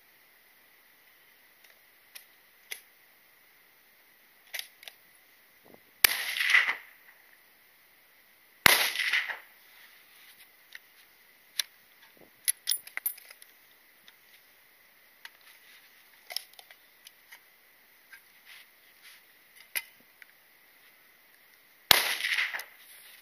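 Three full-bore bolt-action rifle shots, each ringing out briefly. The second comes about three seconds after the first and the third much later, near the end. Lighter clicks and knocks between the shots come from the rifle being handled.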